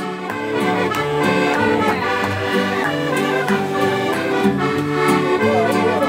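Button accordion playing a lively instrumental passage between sung verses of a despique, over strummed guitar.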